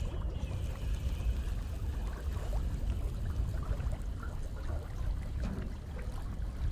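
Wind rumbling on the microphone over choppy water, with small waves lapping against the boat's hull.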